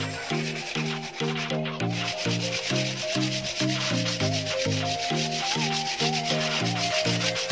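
Sandpaper rubbed by hand back and forth over a painted wooden boat plank, a steady scratchy hiss. This is sanding down the first coat of paint before the next one. Background music with a quick, even beat plays under it.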